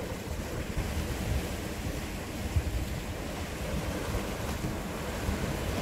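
Sea waves washing and breaking against shoreline rocks, a steady rushing of surf, with wind buffeting the microphone as a low rumble.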